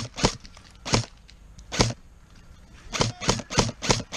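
Airsoft gun firing: three single shots spaced out, then about a second and a half of quicker shots, roughly four a second.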